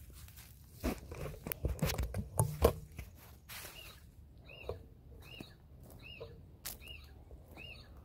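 Knocks and rustles of a phone camera being handled and turned around, in the first three seconds. Then a bird repeats one short arched note, about once every two-thirds of a second.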